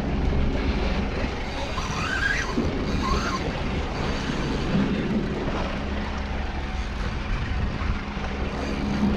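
Boat's outboard motor running at steady low revs, a constant low hum.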